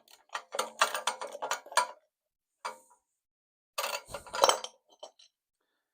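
Metal hand tools clinking and rattling against each other and the engine: a quick run of sharp clinks in the first two seconds, then a second cluster with a dull knock a little after halfway.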